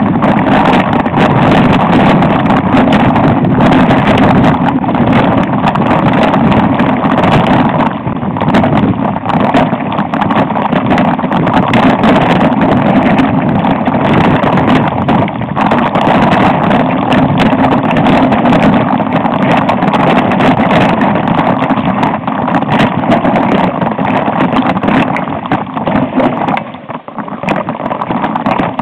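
Mountain bike riding over a rough dirt trail, heard from a camera mounted on the bike: a steady rush of wind and tyre noise on the microphone with constant rattling and knocking from the bumps. It gets quieter briefly near the end.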